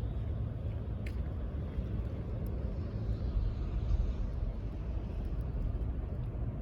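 Steady low rumble of vehicle noise, with a faint click about a second in.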